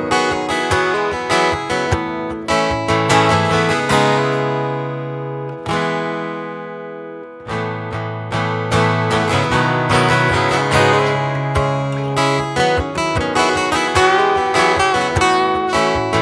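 Acoustic guitar strummed in chords. A little past the middle the strumming pauses and two chords are left to ring and die away, then steady strumming picks up again.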